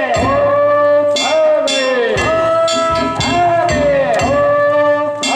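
Danjiri festival music: drums and clanging hand gongs struck in a repeating rhythm about twice a second, under a sustained ringing pitched tone.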